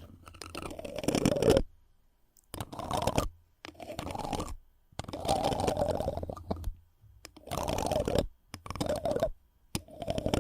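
ASMR friction trigger: something rubbed and scratched right against the microphone in about seven short strokes, each a crackly rustle of a second or so, with brief silent pauses between them.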